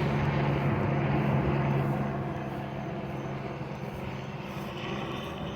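Steady low engine drone over the general hum of traffic, easing down after about two seconds.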